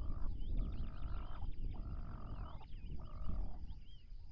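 Wildebeest calling: four short calls in a row, about one a second, over wind rumbling on the microphone.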